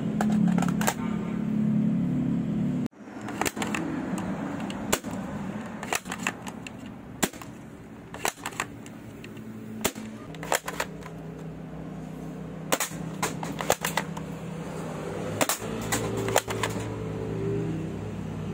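Spring-powered plastic airsoft M4 replica being cocked and fired again and again: sharp plastic clicks and snaps at irregular intervals, with a steady low hum underneath.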